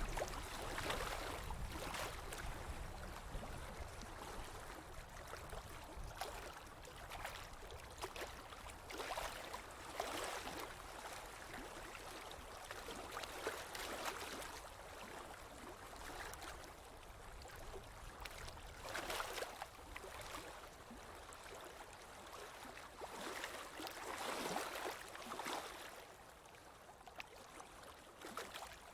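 Running stream water, splashing and gurgling without pause, with the flow swelling louder every few seconds.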